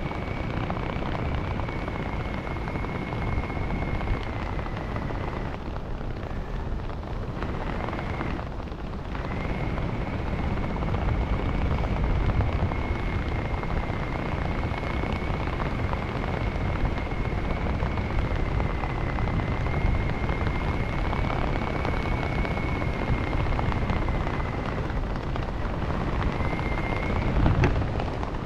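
UH-1 Huey helicopter running, a steady dense rumble with a thin high whine from its turbine. The whine fades out for a few seconds about a fifth of the way in, then comes back and holds.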